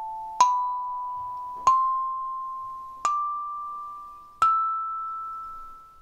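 Gaharu GK17CM 17-key kalimba, its highest four steel tines plucked one at a time in rising order. There are four notes about a second and a half apart, each ringing on and fading slowly, the last and highest note sustaining longest.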